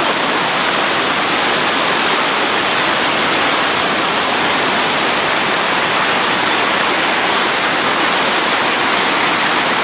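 River whitewater rushing: a loud, steady, unbroken rush of water.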